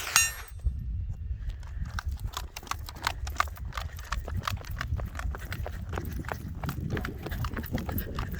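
One last crack of a .22 LR rifle with a steel target ringing right at the start, then quick, irregular footfalls of a shooter running to the next position, over a low rumble.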